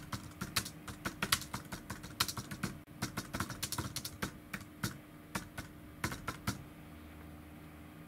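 Typing on a computer keyboard: a quick, irregular run of key clicks that stops about six and a half seconds in.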